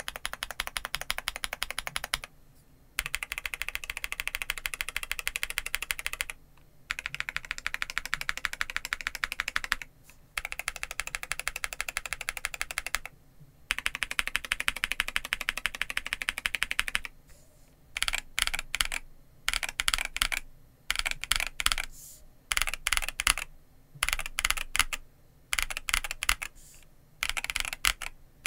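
Typing on a Monsgeek M3W mechanical keyboard with V3 Cream Blue Pro switches and PBT keycaps. Fast continuous typing comes in runs of a few seconds with brief pauses, and from about two-thirds of the way in it breaks into short separate bursts of keystrokes.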